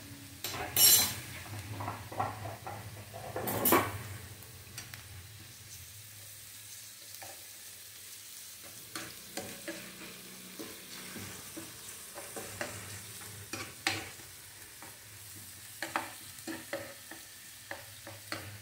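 Metal spoon stirring and scraping chopped onion, green chilli and ginger-garlic paste around a non-stick frying pan in hot oil, over a faint steady sizzle. The loudest scrapes come about a second in and again near four seconds, then lighter scrapes and taps follow. The onions are being sautéed only until soft, not browned.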